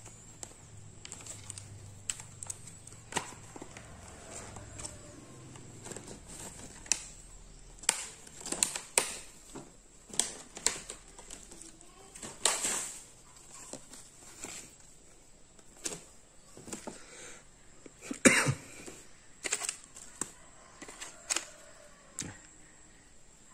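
Scattered clicks, taps and crackles of handling: a metal laptop second-HDD caddy being taken out of its clear plastic blister pack and set down, with the loudest knock about 18 seconds in.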